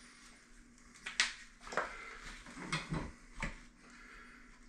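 Small handling noises as a pipe stub inside an open wall is marked with a marker. A sharp click comes about a second in, then a few soft knocks and rubs.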